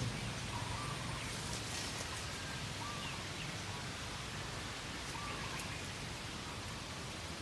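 Rural outdoor ambience: a steady hiss with faint, short bird chirps every second or so.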